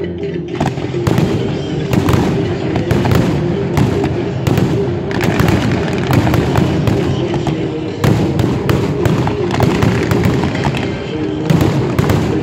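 Fireworks display: a dense run of bangs and crackles from shells and rising comets, several a second, over music playing along.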